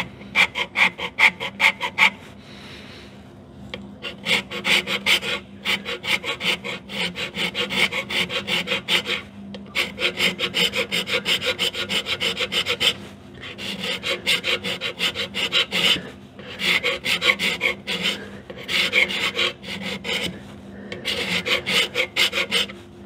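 Hand scraper cutting the port face in the steam chest of a Skinner steam engine: quick, short strokes, about four or five a second, in runs broken by brief pauses. The scraping takes high spots off the face, found by bluing, to bring the face back to flat.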